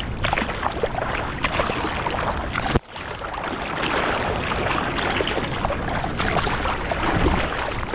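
Seawater lapping and splashing right against a hand-held action camera held at the surface, a dense crackling wash. The sound drops out abruptly for a moment about three seconds in.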